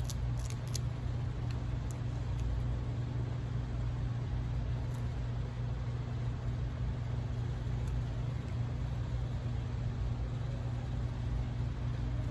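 A steady low mechanical hum from a running motor, with a few faint crackles of shrimp shell peeled by hand about half a second in and again around five and eight seconds.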